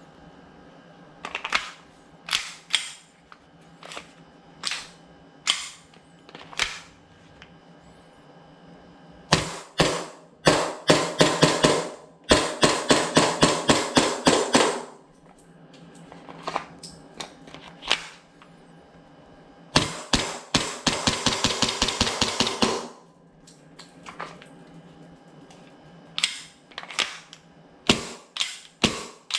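SIG AIR M17 (P320) gas airsoft pistol firing semi-auto: spaced single shots, then two long fast strings of shots, then more spaced shots near the end.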